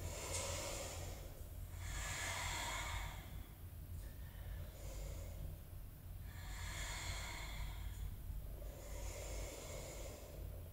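A woman's audible breathing, slow breaths in and out, one swell of breath noise every couple of seconds.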